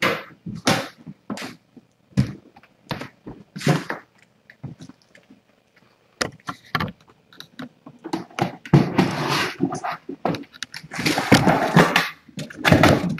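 Handling noise from a camera being repositioned on a mount: scattered knocks and clicks, then a long stretch of rustling and scraping about eight seconds in, with more near the end.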